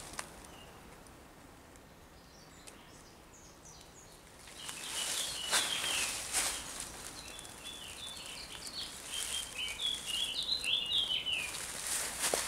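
Small birds chirping in short, quick phrases, with footsteps through undergrowth starting about a third of the way in.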